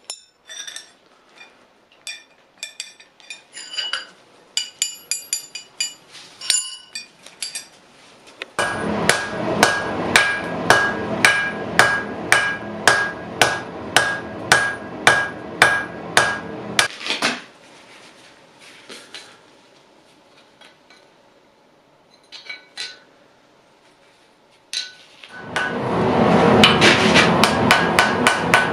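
Hammer blows ringing on steel at an anvil during hand forging of a knife blade. Scattered light taps come first. A long run of even blows, about two a second, follows over a steady rushing noise, then a few sparse taps. Near the end comes a faster run of blows over the rushing noise again.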